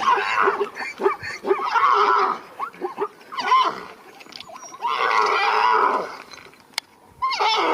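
Zebra calling repeatedly, about five braying calls with short gaps between them.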